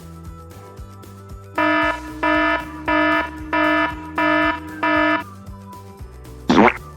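Alarm-style beeping sound effect: six evenly spaced electronic beeps, about one and a half a second, over a faint low tone. A short swish near the end.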